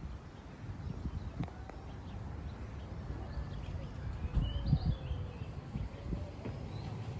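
Street ambience on a walk: a steady run of footsteps on pavement, with a few faint bird chirps about halfway through and a sharp click a little over a second in.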